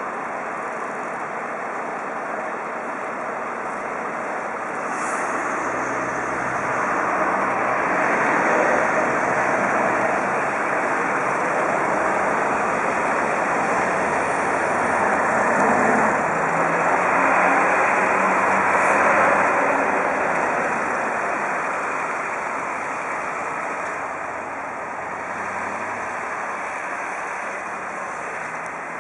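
Road traffic noise of trucks and cars: a steady rush of engines and tyres that grows louder for several seconds in the middle, then eases off.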